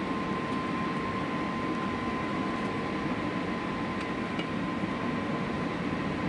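Steady cabin noise of an Airbus A320 in descent: an even rush of engine and airflow noise with a thin steady high hum over it.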